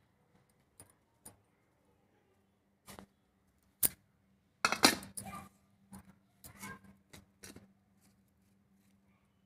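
Dry onion skins and vegetable peels rustling and crackling as they are handled in a steel bowl, with scattered short clicks against the metal; the loudest burst comes about five seconds in.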